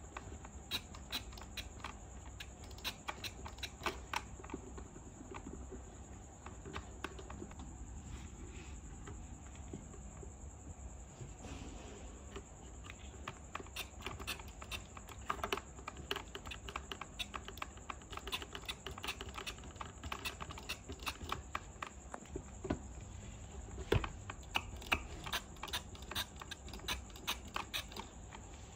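Quick, irregular runs of small plastic clicks and taps as toy vegetable pieces are handled and pushed around in a plastic toy sink. The clicking grows busier in the second half.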